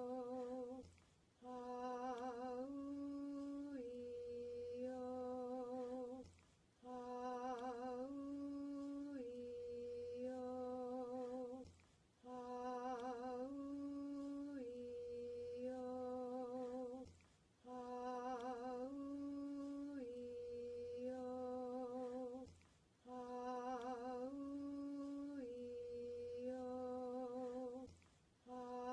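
A single voice chanting the vowels "Ah-oo-ee-oh" over and over, each round four held vowels of about equal length with the second a step higher, a short breath between rounds about every five seconds. Some vowels waver slightly in pitch.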